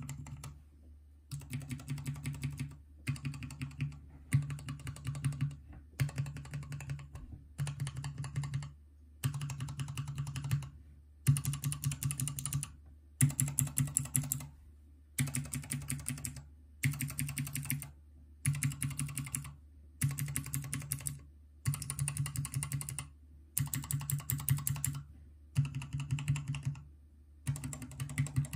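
Clicky Cherry MX White and Cherry MX Green mechanical key switches on an acrylic switch tester, pressed in rapid bursts of clicks about every two seconds with short pauses between. A steady low hum runs underneath.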